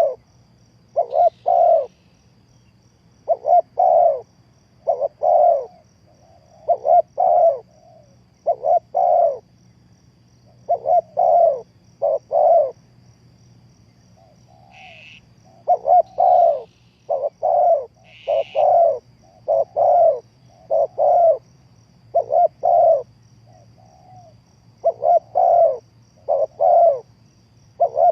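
Spotted dove cooing over and over in short phrases of two or three notes, with brief pauses between phrases. Two short, higher chirps from another bird come about halfway through.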